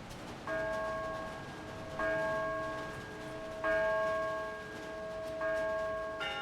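An Orthodox church bell is tolled four times at a slow, even pace, about one stroke every 1.7 seconds. Each stroke rings on and fades before the next. A higher-pitched bell joins with a brighter stroke right at the end.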